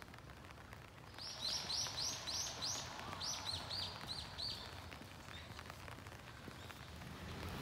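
A bird calling outdoors: two quick runs of short, sharp, high notes, about six and then about five, with a brief pause between them. A faint steady hiss of the wet morning lies beneath.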